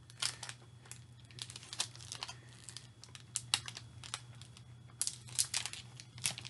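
Plastic snack wrapper crinkling in irregular crackles as it is handled.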